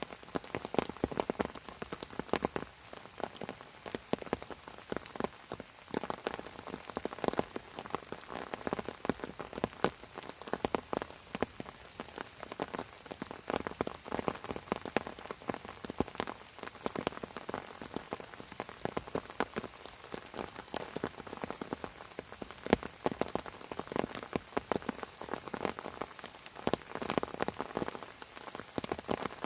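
Rain falling on fern fronds: a dense, continuous patter of separate drops tapping on the leaves over a steady hiss.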